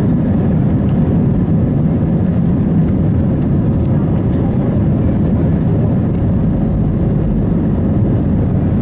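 Airbus A321-200 jet engines at takeoff thrust, heard inside the cabin over the wing as a loud, steady rumble through the takeoff roll and liftoff.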